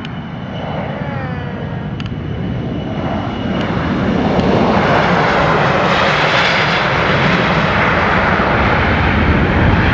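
A Gulfstream G650ER business jet's Rolls-Royce BR725 turbofan engines at takeoff power as it rolls down the runway. A whine falls in pitch about a second in, and the roar grows much louder about four to five seconds in, then holds.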